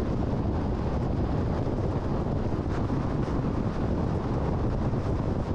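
Steady road and wind noise from a car cruising at highway speed.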